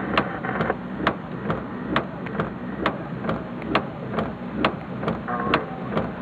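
A car's flasher relay ticking evenly, about two clicks a second, inside an idling car. A steady low engine hum and an even hiss run underneath.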